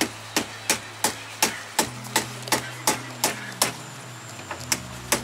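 A hammer knocking on conch shells in sharp, even strikes about three a second, pausing for about a second near the end before starting again. The strikes are knocking holes in the shells to get the conch out.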